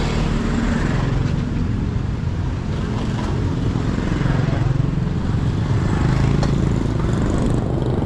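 Motorbike engine running steadily, with road traffic noise, while riding along a street.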